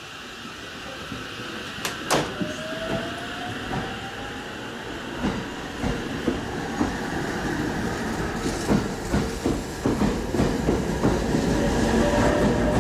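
JR West 289 series electric multiple unit pulling away from the platform and gathering speed, getting steadily louder. Its motors give a rising electric whine twice, and the wheels clatter over rail joints more and more quickly, with two sharp clicks about two seconds in.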